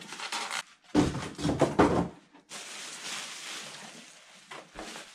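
Plastic packaging bags crinkling and rustling while a styrofoam packing insert and the wrapped appliance are handled, with a few light knocks. The busiest crinkling comes about one to two seconds in, then a softer rustle goes on and fades.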